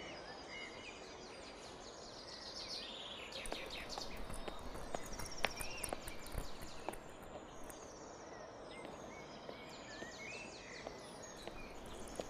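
Outdoor ambience of birds chirping and calling in short phrases over a steady background hiss, with a few faint clicks between about four and seven seconds in.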